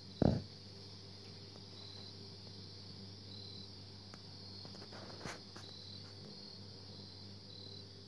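A steady low mains-frequency hum of unknown origin, with several fainter higher tones above it. A short high chirp repeats every second or two, and a thump sounds just after the start, with a smaller knock about five seconds in.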